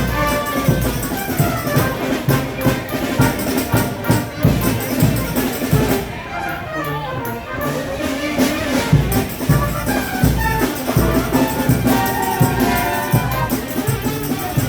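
A live frevo orchestra playing fast frevo, brass over a driving drum beat. The sound thins briefly about six seconds in.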